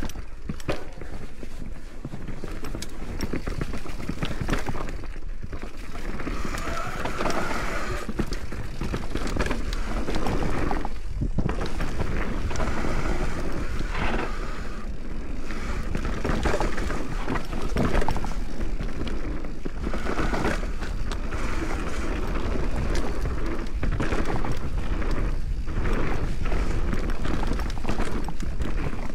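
Mountain bike descending a rough bike-park trail: tyres rolling over dirt and rocks, with frequent knocks and rattles from the bike over a steady low rumble.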